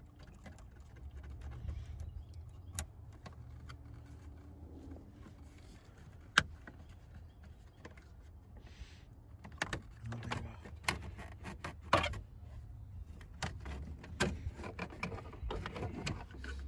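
Scattered small clicks and taps of hand tools working on the steering column and ignition lock of a 1994 Chevrolet Silverado, busier in the second half, with a sharp click about six seconds in and another about twelve seconds in. A low steady hum runs underneath.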